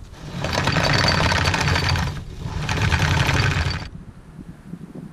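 Anchor chain rattling in two runs of about two seconds and one and a half seconds with a short pause between them, as the anchor is handled to move the boat.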